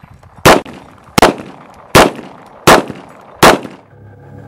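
Five revolver shots from a Ruger Security Six, evenly spaced about three-quarters of a second apart, each a sharp crack with a brief decay. Music begins near the end.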